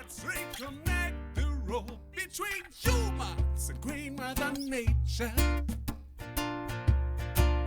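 Instrumental music: strummed acoustic guitar over deep bass notes that land about every two seconds, with a wavering melody line in the first half.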